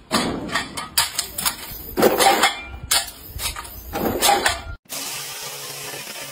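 Loose steel nails clattering and jingling as a magnetic nail pickup tool is set down on a pile, lifts a clump and lets it drop into a cardboard box, with dense bursts of clatter twice. After a sudden cut near the end comes a steady hissing buzz from a laser rust cleaner working on a rusty steel bicycle frame.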